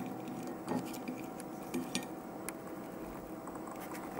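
A few light clicks and clinks of objects being handled and set down on a tabletop, over a faint steady hum.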